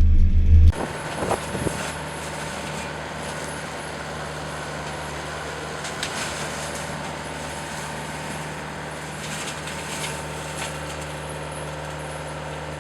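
Yanmar VIO50U mini excavator's diesel engine and hydraulics running steadily with the mulcher attached. A louder, deeper engine sound cuts off abruptly less than a second in, and a steady even hum with a hiss carries on.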